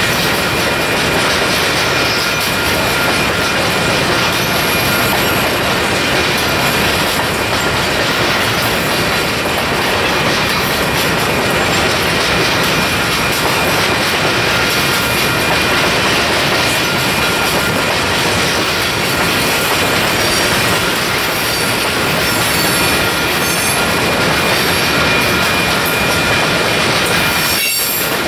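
Freight train of covered hopper cars rolling past at close range: a steady rumble and clatter of steel wheels on the rails, with a thin, steady wheel squeal.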